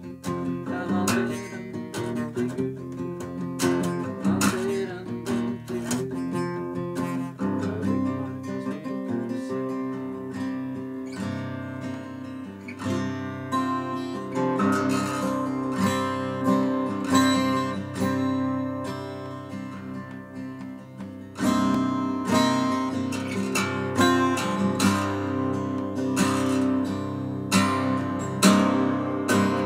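Solo acoustic guitar, strummed and picked chords with no voice, getting noticeably louder about two-thirds of the way through.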